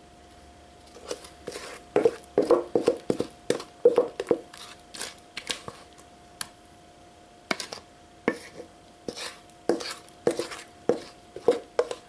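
Wooden spoon scraping and knocking against a stainless steel mixing bowl as thick batter is scraped out, in irregular clunks that come in quick clusters with short pauses between.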